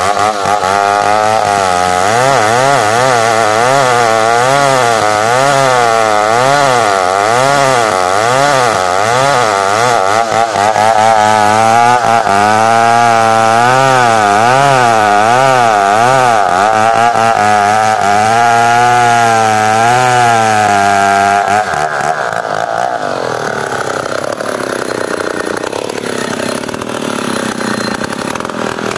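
New West 707 two-stroke chainsaw ripping a squared log lengthwise along the grain, the engine pitch rising and falling about once a second as it works under load. About three-quarters of the way through, the saw comes out of the cut and the engine drops to a lower, lighter running.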